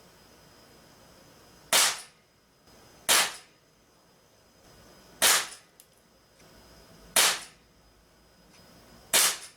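Crosman Vigilante CO2 pellet revolver firing five shots, each a sharp crack, about one and a half to two seconds apart.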